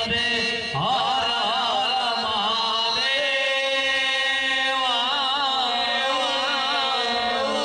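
Devotional chanting sung in long wavering held notes over a steady drone accompaniment.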